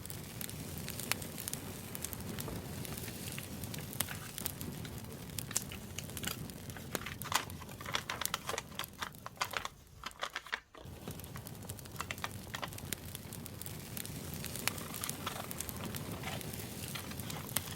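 Campfire crackling over a steady low rumble, mixed with rustling and crinkling as journaling paper is handled. The sound drops out briefly about ten seconds in.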